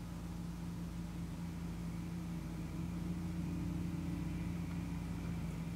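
Room tone: a steady low hum with no other event.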